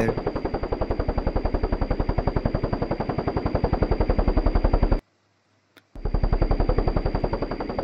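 Helicopter sound effect: fast, even rotor chopping with a steady high whine over it. The chopping cuts out for about a second two-thirds of the way through, then starts again.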